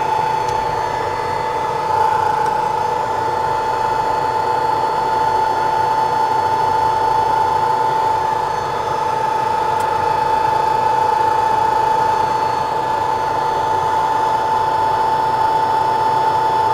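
ZM-R5830 BGA rework station running its hot-air heater over a laptop PCH chip: a steady fan whir with a constant high whine, as the chip's lead-free solder is brought to melting at about 265 °C.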